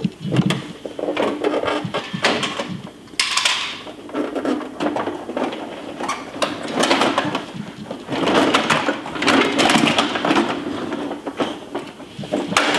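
Plastic clattering and rattling from a Bruder Mack Granite toy garbage truck as it is handled and pushed by hand: an irregular run of knocks and rattles.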